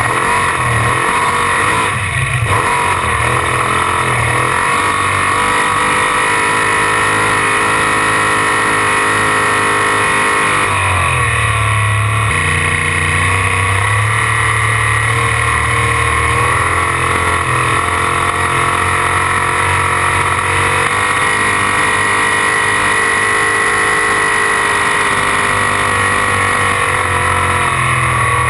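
Wesco-built 557 cubic-inch Ford big-block V8 in a V-drive boat, running steadily under load. Its note drops about ten seconds in, then holds steady again.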